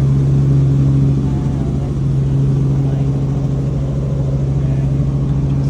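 Helicopter cabin noise in flight: a loud, steady engine and gearbox drone with the fast beat of the rotor underneath.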